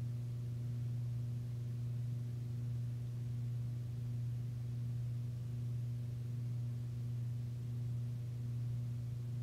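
Steady low electrical hum with faint higher overtones, unchanging throughout; no brush or paper sounds stand out.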